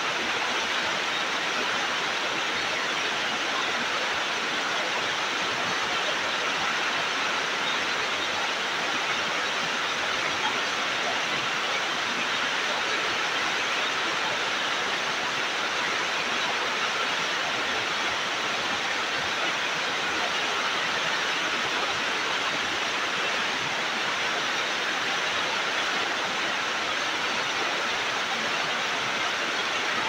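Waterfall: a steady, even rush of falling water, hissy and bright, with no change in level.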